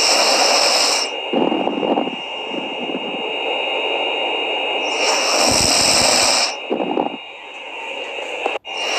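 Snoring in slow breaths about five seconds apart: a loud hissing rasp at the start and again about five seconds in, the second with a low rattle, each followed by a softer, lower puff of breath.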